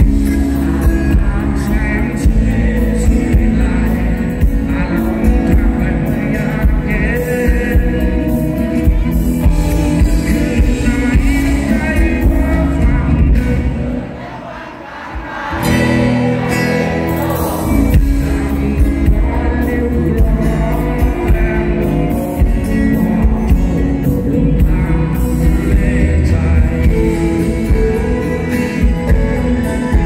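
Live rock band playing, with a male lead vocal over acoustic guitar, keyboards and drums. About halfway through the low end drops out briefly, then the full band comes back in.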